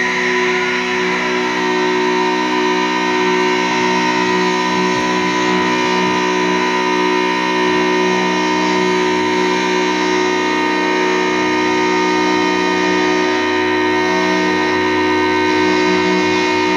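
Live doom metal band playing: distorted electric guitars hold one steady droning chord with no drum beat, loud and even throughout.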